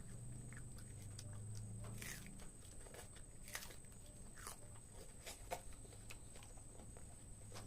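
Someone chewing raw green chilies and tomato: scattered crunches and wet mouth clicks at an uneven pace, over a faint low hum.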